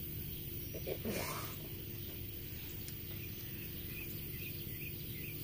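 Outdoor background with a steady low hum and faint, short high chirps repeating through the middle, plus one brief sound rising in pitch about a second in.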